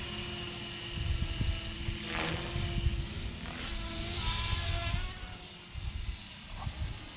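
Electric RC helicopter flying: a steady high motor whine over the whir of the rotors, with tones shifting in pitch mid-way as it manoeuvres, then getting quieter about five seconds in.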